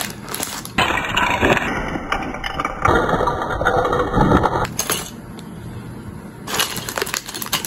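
Clear plastic bag of Lego pieces crinkling and rustling as it is handled and torn open, with a quieter stretch a little past the middle.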